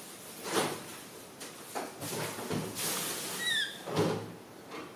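A few short knocks and rustles, one every second or so, and a single short high chirp, falling in pitch, about three and a half seconds in.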